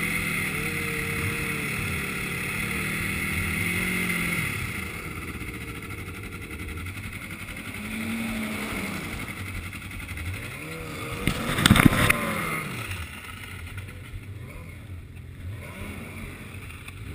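Yamaha snowmobile engine running at low speed, its pitch rising and falling with the throttle. It is louder for the first four seconds or so, and there is a short loud burst of noise about twelve seconds in.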